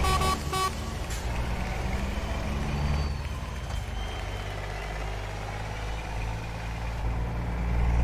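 Scania R440 truck's six-cylinder diesel engine rumbling, its level rising and falling and swelling again near the end. A short run of beeps sounds right at the start.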